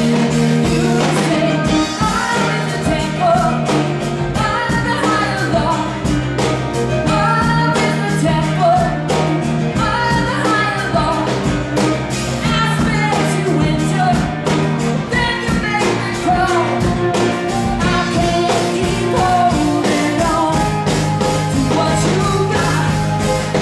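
Live band playing a song with a woman singing lead over held bass notes and a steady beat.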